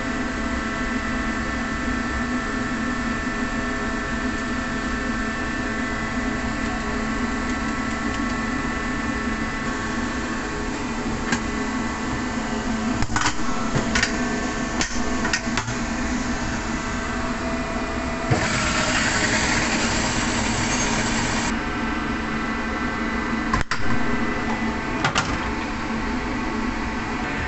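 Commercial food processor puréeing roasted eggplant over a steady hum of kitchen machinery. Its steel bowl and lid clank and knock several times, and the motor whirrs loudly for about three seconds partway through.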